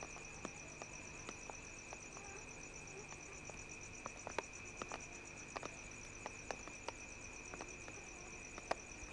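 Crickets trilling steadily and faintly, with scattered light clicks.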